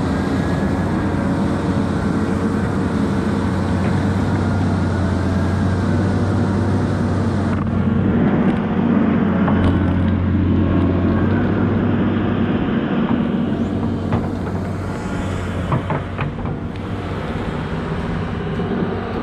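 Diesel engine of a digging machine running steadily, with a deep hum and a few knocks in the last few seconds.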